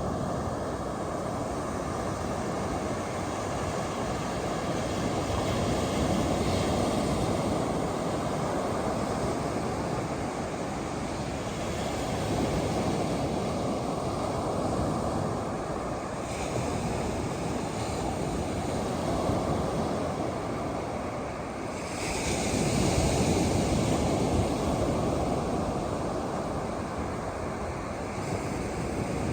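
Ocean surf: a continuous rushing of breaking waves that swells and eases every few seconds, with a louder break about 22 seconds in.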